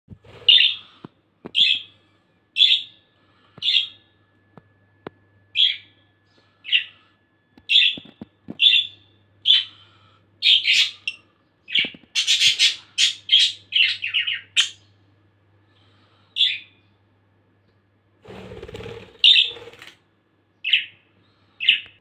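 Budgerigars chirping: short single chirps about once a second, then a quicker run of chirps in the middle. Near the end there is a brief rustling noise, followed by a few more chirps.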